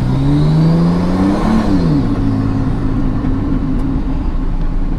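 Nissan Cefiro A31's engine and straight-piped exhaust, with no muffler, heard from inside the cabin while driving. The revs climb for about a second and a half, drop away sharply, then hold steady. The driver feels the clutch may be slipping a little.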